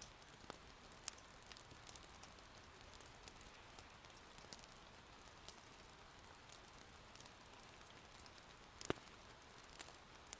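Faint, steady rain patter mixed with scattered small crackles and pops from a wood fire in an irori hearth, with one sharper pop near the end.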